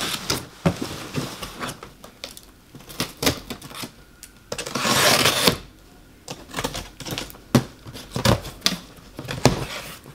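A cardboard shipping box being opened by hand: the tape on top is worked loose and the flaps pulled open, with many small clicks, taps and cardboard rustles, and a rasping sound of about a second near the middle.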